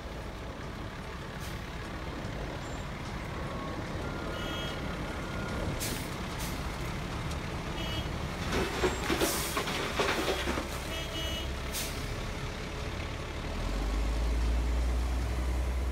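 Wirtgen W200i milling machine and a dump truck running steadily while milled asphalt pours off the conveyor into the truck bed. A burst of hissing and clatter comes about 9 seconds in, and near the end a deeper engine rumble rises as the truck pulls forward.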